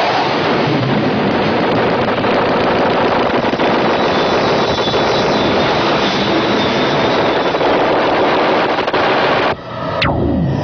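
Dense, rapid rattling noise from a cartoon's electronic soundtrack, cutting off about nine and a half seconds in. A quick falling swoop and synthesizer tones follow.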